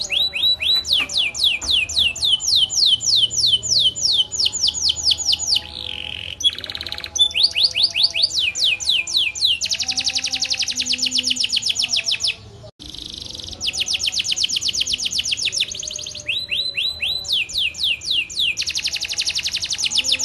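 Domestic canary singing a long, continuous song of rapid rolls and trills: fast repeated high notes sweeping downward, shifting to a new phrase every second or two, with a brief break about two-thirds of the way through.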